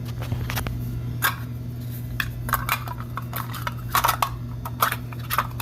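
Irregular small metallic clicks and clinks of a hand tool on a refrigeration service port as a Schrader valve core is screwed back in and tightened, over a steady low hum.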